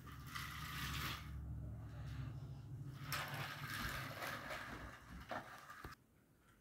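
Small toy car running on a flexible plastic race track: a steady little motor hum with clattering over the track pieces, which stops about six seconds in.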